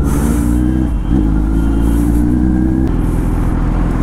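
Motorcycle engine running under way as the bikes set off, its steady note shifting in pitch about a second in and again near three seconds.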